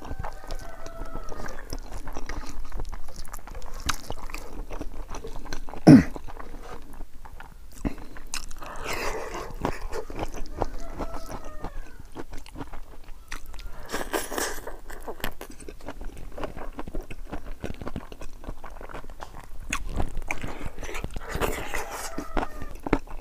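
Close-miked eating by hand: wet chewing, lip smacks and crunching of pig's trotters, rice and vegetables in irregular bites, with one sharp click about six seconds in.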